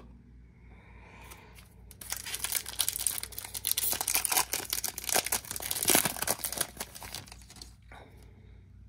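Wrapper of a Topps baseball card pack being torn open and crinkled by hand: a run of crackling tears lasting about five seconds, starting about two seconds in and loudest near the end.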